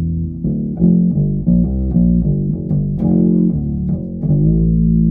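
Ibanez SRH505F five-string fretless acoustic-electric bass played through its piezo pickup, a run of about eight or nine plucked notes ending on one held, ringing note. The tone knob is rolled all the way back, giving a much darker sound that still keeps the definition of the notes.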